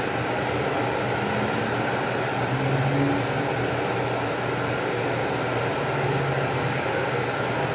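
A steady mechanical whirring hum, like a fan running, at an even level throughout.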